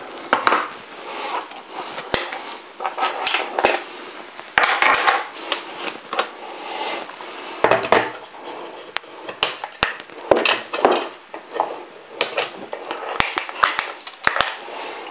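Hands taking an antenna amplifier unit and its connectors off a drone remote controller on a wooden desk: an irregular run of sharp plastic and metal clicks, knocks and clatter, with handling rustle between.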